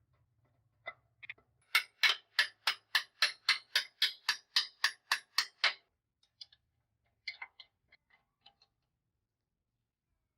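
Sharp hammer taps during workshop work. A run of about a dozen evenly spaced strikes comes at roughly three a second, followed by a few softer, scattered taps.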